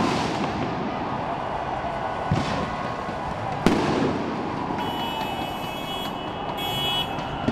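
Fireworks going off: two sharp bangs, each with a short echoing tail, over a steady street din. A high steady tone sounds for about two seconds near the end.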